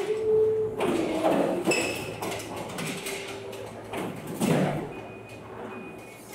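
Forklift handling a loaded steel cage pallet: metal rattling and clanking in several bursts over a steady machine hum, with a short squeal at the start and a high thin tone near the end.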